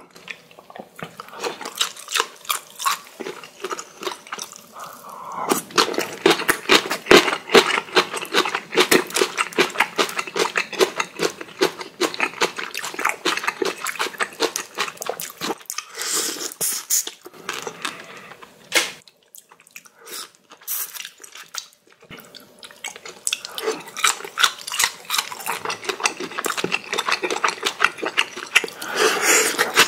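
Cooked shrimp being peeled by hand, the wet shells giving a dense run of crackling clicks, with a short pause about two-thirds of the way through.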